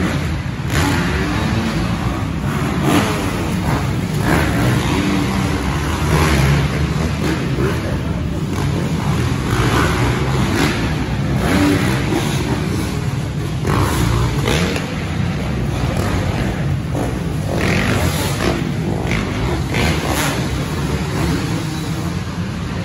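Dirt bike engines running hard on an arenacross track, revving up and down again and again.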